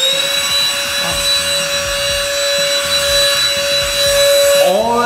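Cordless INGCO handheld vacuum cleaner with a brush nozzle running at full speed as it is drawn across a tabletop to pick up crumbs: a steady, high motor whine.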